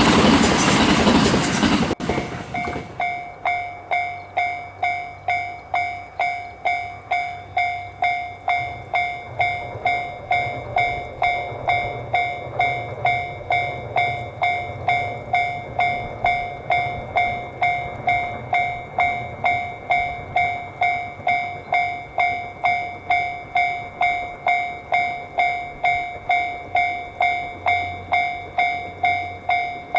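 Japanese level-crossing warning bell ringing steadily, about one and a half dings a second. For the first two seconds it is drowned out by the loud rush of a passing JR West Series 287 electric train, which cuts off abruptly.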